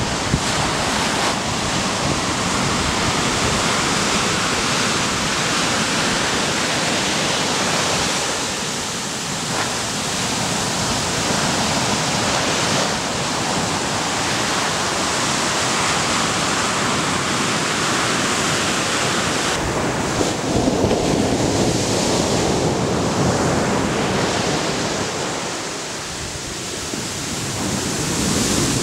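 Ocean surf breaking and washing up a sandy beach: a continuous rushing that swells and eases, dropping back briefly about a third of the way in and again near the end.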